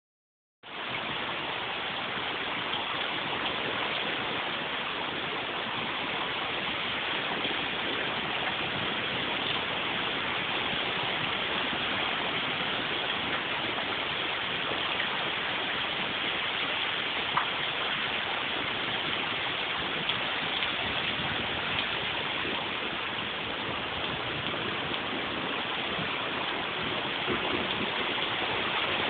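Heavy rain pouring down, a dense steady hiss.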